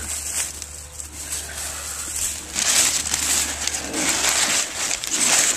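Brown kraft packing paper being crumpled and rustled by hand, a dense crackling that gets louder about two and a half seconds in.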